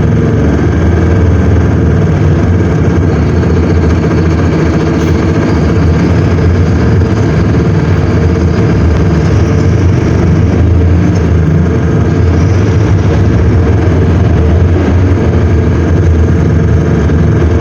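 Mercedes-Benz OM-924 LA four-cylinder inline diesel engine of an OF-1721L BlueTec 5 bus, running steadily.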